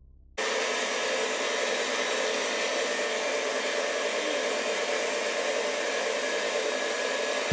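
Electric stand mixer running steadily with the flat beater turning: an even motor whir and rush that starts suddenly about half a second in.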